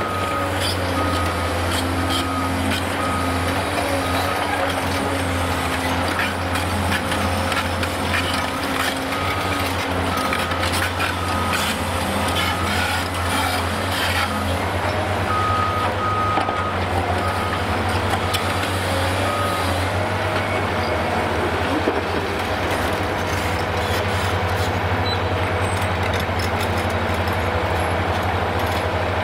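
Heavy diesel engine of a Cat 390D high-reach demolition excavator running steadily with a deep hum. A reversing alarm beeps about one and a half times a second for the first several seconds and again a little past the middle. Sharp knocks and clatter come in the middle stretch.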